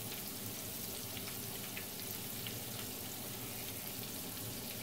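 Flour-coated chicken drumsticks frying in hot oil in a skillet: a steady sizzle with scattered small pops.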